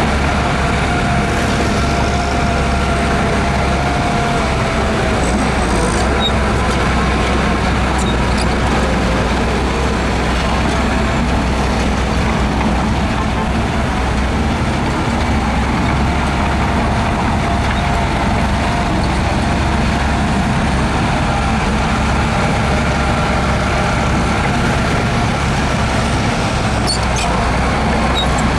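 Heavy diesel earthmoving machinery running steadily under work, a deep engine rumble with no break, and a few faint clicks, once about eight seconds in and again near the end.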